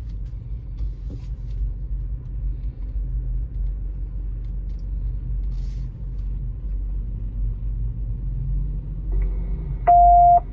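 Low steady rumble of a car idling, heard inside its cabin. Near the end, a short electronic alert beep from the dashboard alert unit, the loudest sound.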